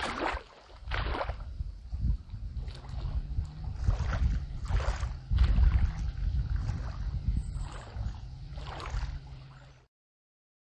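Small wind-driven waves lapping and splashing against a reedy lakeshore, a splash every second or so, over a steady low rumble of wind on the microphone. The sound cuts off abruptly near the end.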